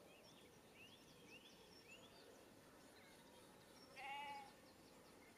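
Faint small birds chirping in short, repeated rising notes, and a sheep bleating once, briefly, about four seconds in.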